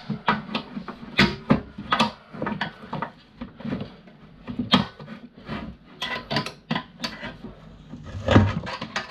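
Flathead screwdriver prying at a stubborn brass terminal bar in a fuse board, a string of irregular clicks and scrapes of metal on metal and plastic, with a heavier knock near the end as it works loose.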